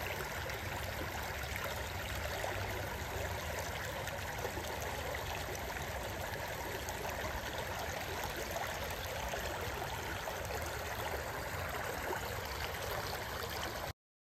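Shallow creek running fast over rocks and stones, a steady rushing and babbling. It cuts off abruptly near the end.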